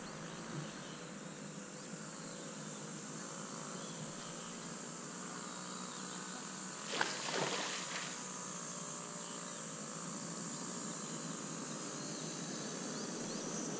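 Insects buzzing steadily in a high, even drone, with a faint wavering hum underneath and one short noisy burst about seven seconds in.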